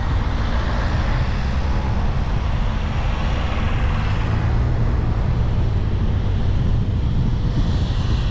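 Steady noise of a car driving along a road: a low rumble of tyres and engine with a fainter rush of wind over it.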